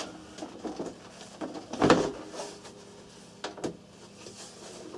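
Plastic cabinet of a radio cassette player being prised apart by hand: a click, a louder creaking scrape about two seconds in, then two quick sharp clicks.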